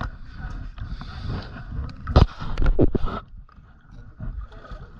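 Water sloshing and splashing close to the microphone, with a few sharp, loud splashes two to three seconds in.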